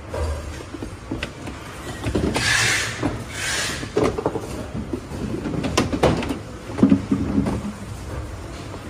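Hard plastic dashboard panel of a ride-on toy car being lifted and shifted by hand. There are two scraping passes of plastic on plastic, then a run of sharp clicks and knocks as the parts bump and catch.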